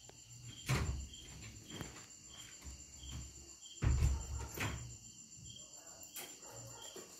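Crickets chirping steadily, a high continuous trill with a pulsing chirp about twice a second, broken by a few dull thumps, the loudest about a second in and again a little before the middle.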